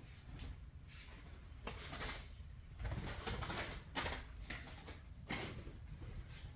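A bird trapped in a garage, heard in several short noisy bursts spread across a few seconds.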